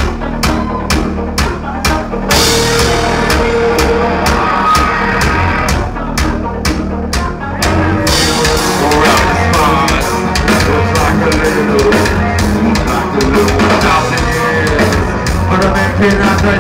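Live mathcore band playing loud, with drum kit, bass and distorted guitars. Evenly spaced drum hits open, the full band comes in about two seconds in, and the sound gets denser again about eight seconds in.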